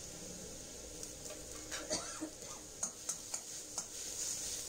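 Steel spatula stirring and scraping frying onion and ginger-garlic paste in an iron kadai, clinking sharply against the pan about five times from about two seconds in, over a faint steady hiss.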